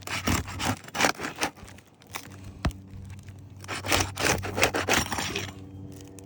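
Flat pry bar worked under an old asphalt shingle, scraping and tearing it loose from its adhesive seal strip in a series of rough strokes. Two spells of scraping with a single sharp click in the pause between them.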